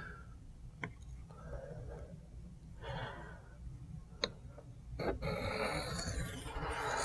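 Spyderco Shaman's Cruwear blade stroked freehand across a wet sharpening stone: soft scraping strokes with two light clicks, turning into a longer run of fuller strokes about five seconds in.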